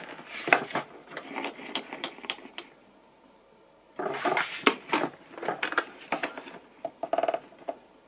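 Hard plastic casing of a Rowenta bagless canister vacuum cleaner knocking, clicking and rubbing as it is turned over in the hands. The noise comes in two spells of about three seconds each, with a short rattle near the end.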